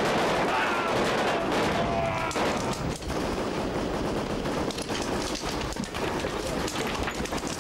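Sustained rapid automatic gunfire, many shots packed close together, with shouting voices over it in the first two seconds or so.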